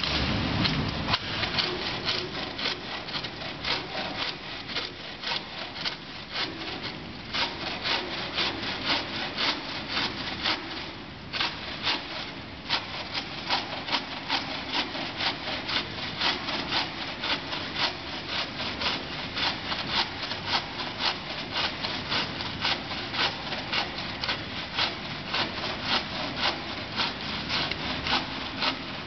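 Green-framed hand saw cutting through a softwood plank, its blade rasping in steady back-and-forth strokes, about two a second, with a short pause about eleven seconds in.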